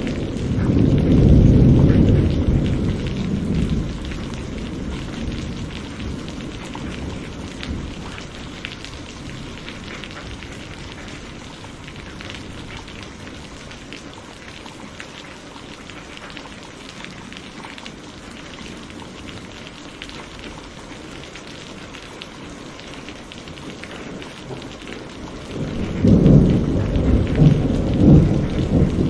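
Steady rain falling, with thunder rolling over it: a deep rumble that peaks a second or two in and dies away over the next few seconds, then rain alone, and a second roll of thunder starting about 26 seconds in with several swells.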